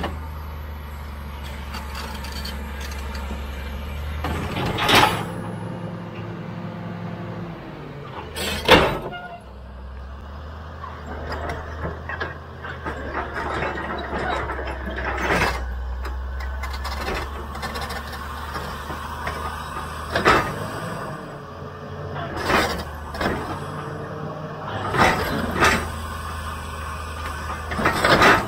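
CAT D7G crawler bulldozer's six-cylinder diesel engine running under load as the machine pushes against a large boulder, its note shifting as the load changes. About eight sharp metallic clanks and knocks from the blade and tracks work against the rock; the loudest comes about nine seconds in.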